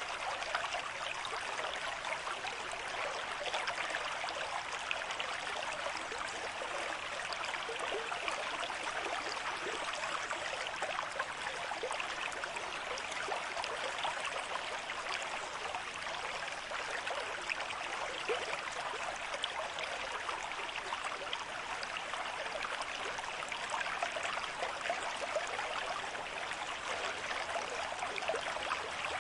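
River stream with moderate flow, water running and splashing over stones in a steady, even rush.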